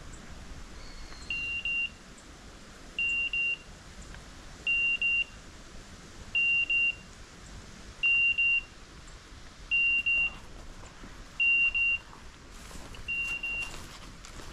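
Electronic beeper collar on a pointing dog sounding a high double beep about every 1.7 seconds, eight times over. Brush rustles and crunches near the end.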